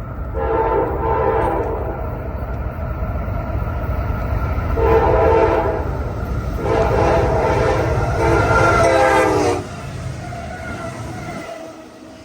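CSX freight locomotive's multi-note air horn sounding a series of blasts, the last and longest cutting off near ten seconds in, over a low rumble from the train.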